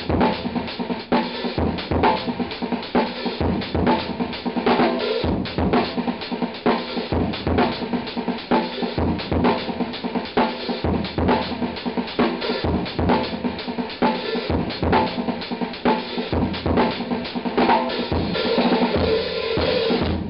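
Drum kit played as a busy groove: bass drum and hard snare backbeats with quiet ghost notes on the snare between them, and cymbals under it. Near the end the playing becomes denser and more sustained.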